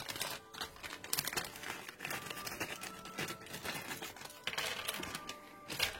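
Plastic packaging crinkling and rustling as it is handled, in a dense run of irregular crackles.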